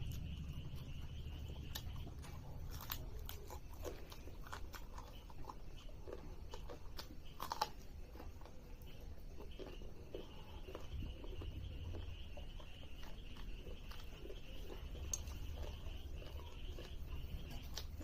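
Close-up eating sounds: a person chewing and biting into spicy chicken pieces, with scattered wet mouth clicks and crunches, the sharpest about seven and a half seconds in. A steady high-pitched drone sits in the background for most of the time.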